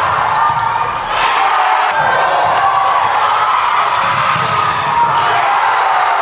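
Basketball game sounds: a basketball bouncing on a hardwood gym floor over the steady noise of the crowd in the stands.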